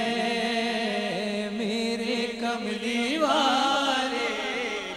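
A male voice sings a naat (Urdu devotional song) and holds long, slowly wavering notes, with a new phrase rising in about three seconds in.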